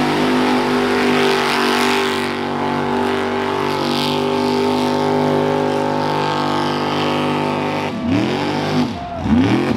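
Pickup truck's engine held at high revs as the truck churns through a mud bog, running steady for about eight seconds, then revved down and back up twice near the end.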